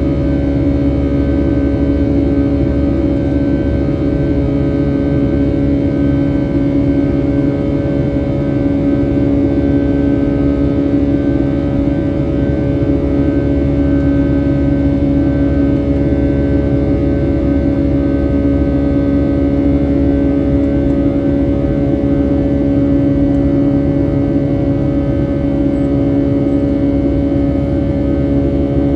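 Boeing 757-300 cabin noise during the climb after takeoff, heard from a window seat over the wing: the jet engines' steady drone with a constant hum.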